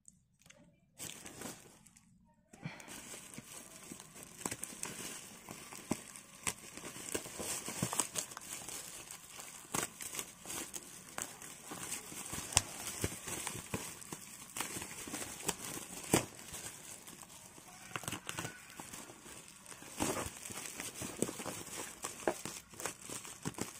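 Scissors cutting into a taped, plastic-wrapped parcel, with crinkling and crackling of the plastic wrap and many small irregular snips and clicks, starting about two and a half seconds in.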